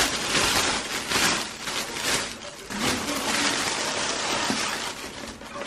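Thin plastic carrier bag rustling and crinkling in irregular bursts as it is handled and pulled open around a takeout food container.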